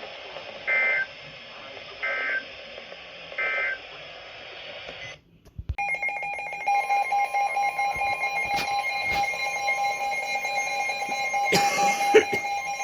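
Three short bursts of EAS/SAME digital data tones, about a second apart, signalling end-of-message for a weather-radio warning. After a brief silence, a steady electronic alert tone begins, with a second pitch joining a second later and a few clicks, heralding the next warning.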